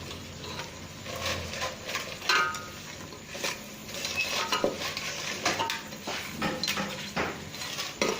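A utensil stirring and scraping in a cooking pot, with repeated clinks of metal on metal and sizzling underneath.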